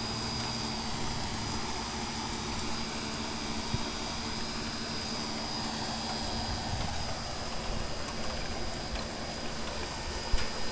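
Thunder from a passing thunderstorm rumbling low and unevenly under a steady hiss, with a couple of sharp clicks near the end.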